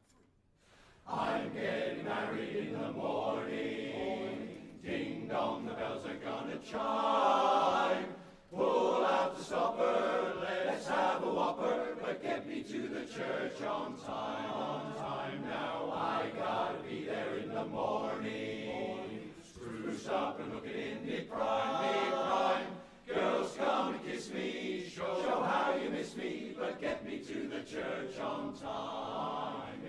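Men's barbershop chorus singing a cappella in close harmony, coming in after a short pause about a second in, with brief breaths in the singing twice along the way.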